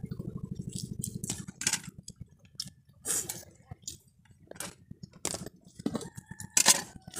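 Scattered short clicks, taps and clinks of plastic plates and fingers handling food during a meal eaten by hand. A low, fast-pulsing drone runs under the first second and a half, then stops.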